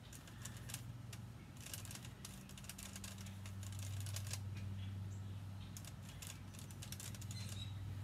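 Paintbrush working paint onto a wooden cutout: irregular light scratchy clicks of the bristles and handle on the wood, over a steady low hum.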